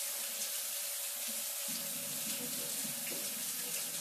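Kitchen faucet running steadily into the sink while hands are rinsed under the stream. The water's sound grows fuller about halfway through as the hands move in the flow.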